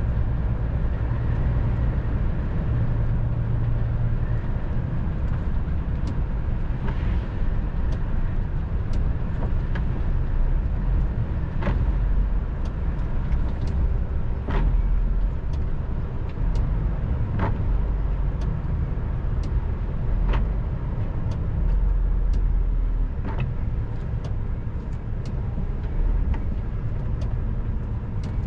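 Heavy vehicle's engine and tyre noise heard from inside the cab while driving on a wet road: a steady low drone, with a short tick about every three seconds from about halfway through.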